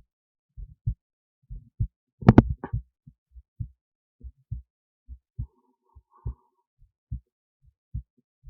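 Human heartbeat heard through an esophageal stethoscope lying in the esophagus beside the heart: steady paired lub-dub thuds, roughly seventy a minute. About two seconds in, a louder, sharper crackling thump briefly covers one beat.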